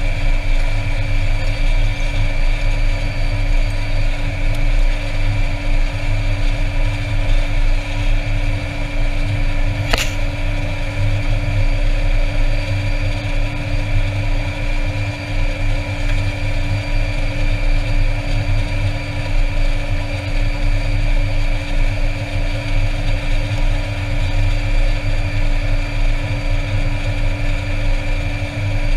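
Air Tractor 402B's Pratt & Whitney PT6A turboprop idling on the ground, heard from inside the cockpit: a steady whine of several held tones over a low rumble. A single sharp click about ten seconds in.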